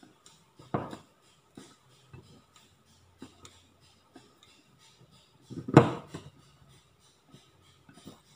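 Small wire whisk clicking against a ceramic bowl in quick, regular strokes, mixing whipped egg white into egg yolk. A knock comes about a second in, and a louder one, the loudest sound, comes near six seconds in.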